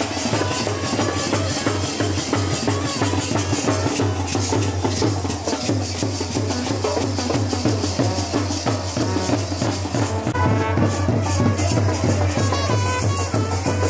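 Procession band music: drums beating a fast, steady rhythm with a brass melody over it.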